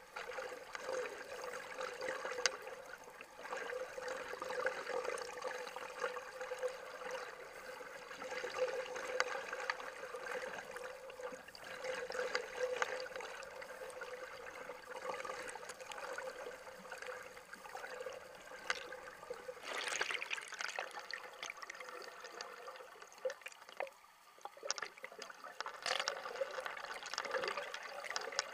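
Flowing river water picked up by a camera held underwater: a steady gurgling, trickling rush with scattered small clicks and ticks.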